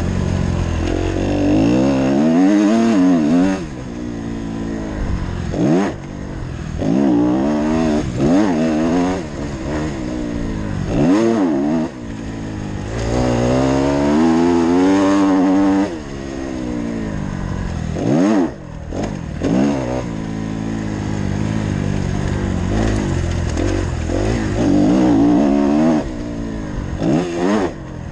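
2015 Kawasaki KX250F motocross bike's four-stroke single-cylinder engine revving hard and backing off again and again as it is ridden round a dirt track, its pitch rising and falling with the throttle and gear changes. Several sudden drops where the throttle is closed.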